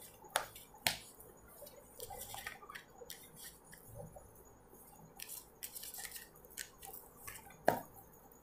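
Tarot cards being handled and drawn from the deck: a scattered run of soft flicks, slides and light taps of card stock, with the sharpest tap near the end.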